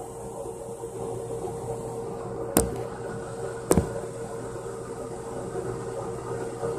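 Steady mechanical hum with a constant tone, broken by two sharp clicks about a second apart, near the middle.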